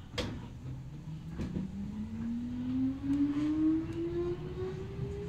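Kintetsu 8000 series electric train pulling away, heard from inside the car: the whine of its DC traction motors under field-phase control climbs steadily in pitch as the train accelerates. A sharp clack comes just after the start.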